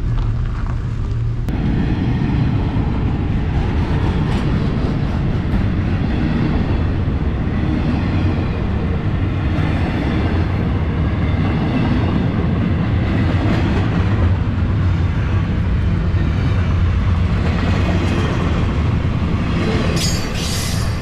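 Freight train cars rolling past close by: a steady heavy rumble with wheel clatter on the rails, and a few sharper metallic clanks near the end.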